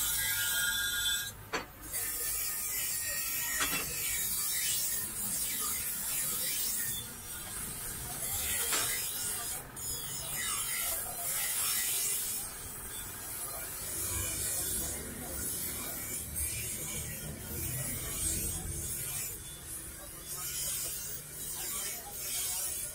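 Bench grinder's stone wheel grinding the edge of a steel butcher knife: a continuous hissing rasp that swells and eases as the blade is pressed to the wheel and drawn along it, with a brief drop about a second and a half in.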